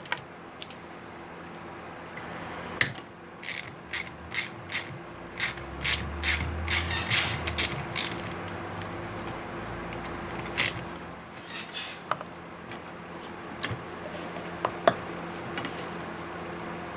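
Ratchet wrench clicking in a quick run of strokes for several seconds, then a few scattered tool clicks and knocks, as a paramotor engine is taken apart. A steady low hum runs underneath.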